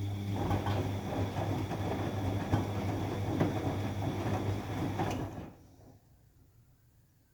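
Bosch WFD 1260 washing machine motor turning the drum during the rinse cycle: a steady low hum under rough, crackling noise, which runs for about five seconds and then stops. The uploader puts the noise down to a bad motor.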